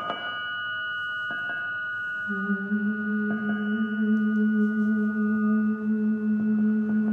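A singing bowl struck once, its several high ringing tones holding on; about two seconds in a low steady tone comes in beneath it and holds, making the sound louder.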